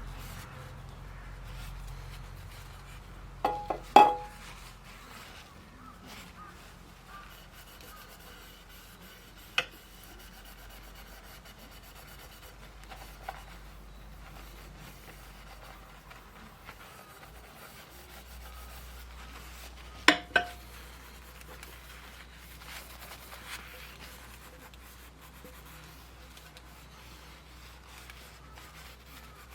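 Metal cookware clinking: a few sharp clinks that ring briefly, two close together a few seconds in, one about a third of the way through, and another pair past the middle, with faint rubbing and a low steady hum between them.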